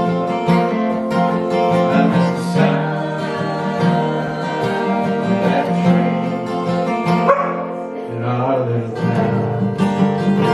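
Acoustic folk music: an acoustic guitar strummed and picked in an instrumental passage between sung lines.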